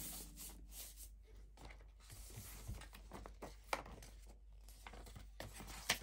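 Faint rustling and scraping of cardboard and paper packaging being handled as a keyboard is unboxed, with two light knocks, one a little past halfway and one near the end.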